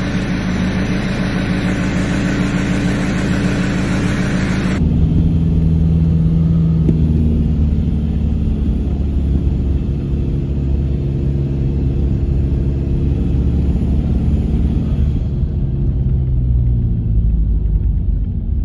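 Ford Ranger heard from inside the cab. It runs while parked for the first few seconds, then cuts sharply to a low, steady rumble of engine and road noise as it drives, with the engine note rising and falling gently under load.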